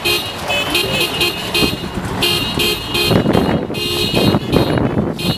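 Car horn honking in a rapid run of short repeated toots, two or three a second, from a welcoming convoy. About halfway through, a rough rushing noise joins in.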